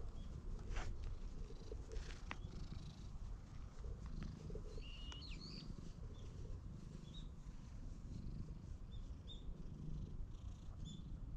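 Domestic cat purring while being stroked, a low continuous rumble.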